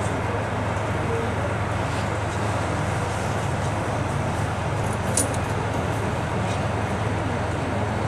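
KiHa 183 series diesel multiple unit running into a snowbound station: a steady rumble of engines and wheels on the rails, with one short sharp click about five seconds in.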